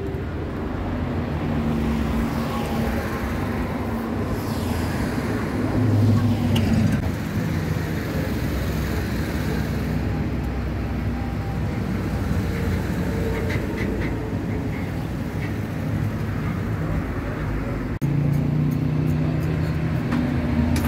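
Street traffic: vehicle engines running with a steady low hum, and a vehicle passing with a falling pitch a few seconds in. The sound changes abruptly near the end, and the low hum becomes louder.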